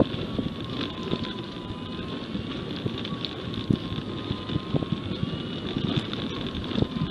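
Wind buffeting the microphone, with irregular soft knocks and a faint wavering whine.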